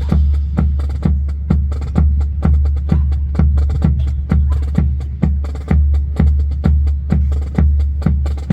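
Percussion-driven music with a steady heavy beat, about two beats a second, and sharp wooden-sounding clicks over it.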